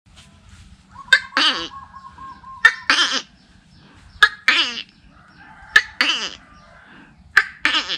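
A man imitating an animal call with his voice, hand held to his mouth: a sharp click followed by a longer call that falls in pitch, repeated five times about every one and a half seconds.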